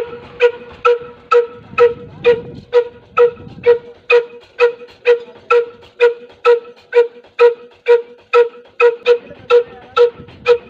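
Slow-speed diesel engine, rated 18–20 HP at about 300 RPM, running steadily through a tall vertical exhaust pipe. Its sharp exhaust pops come evenly about twice a second, and each one rings with a hollow pipe tone.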